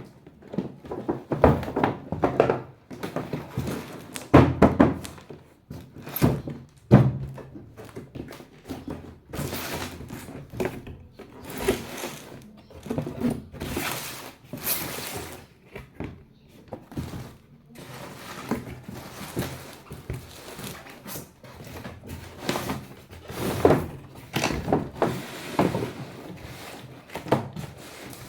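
Hard plastic toy parts being handled and set down: irregular knocks and thunks, with short scraping sounds in between.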